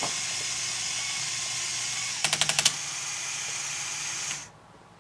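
LEGO Technic Power Functions motor and gear train whirring steadily as it lowers the crane boom. There is a quick run of clicks about two seconds in, and the motor cuts off suddenly a little after four seconds in, as the crane comes fully down.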